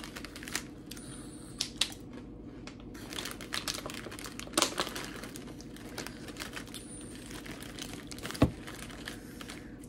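Crunchy potato chips being chewed, with the chip bag crinkling: many small irregular crisp clicks, and one sharper knock about eight and a half seconds in.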